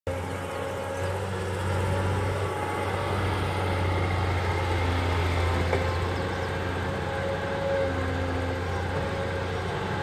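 Hydraulic crawler excavator's diesel engine running steadily as the machine swings its boom and lifts its bucket, a continuous low drone.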